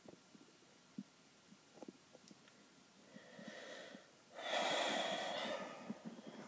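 A man breathing heavily through the nose: a soft breath about three seconds in, then a louder one lasting about a second and a half.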